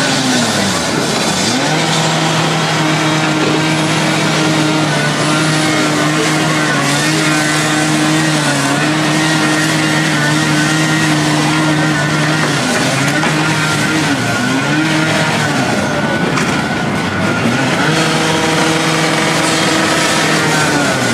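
Demolition excavator's diesel engine running at high, steady revs, its pitch sagging briefly and recovering a few times as the hydraulics take load, over a constant noisy rasp of pavement being broken up.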